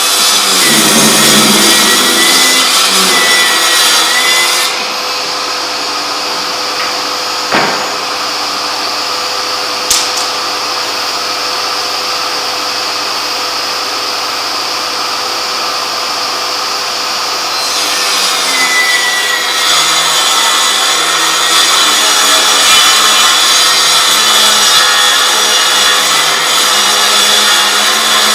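Milwaukee M18 Fuel cordless table saw running and cutting wood, a loud steady whine with the hiss of the blade through the stock. For about thirteen seconds in the middle the sound turns quieter and duller, with two brief sharp knocks.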